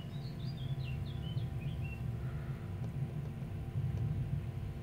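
Lilliput model track tamping machine running along the track, a steady low rumble of its motor and wheels on the rails. A bird chirps a quick series of short notes during the first two seconds.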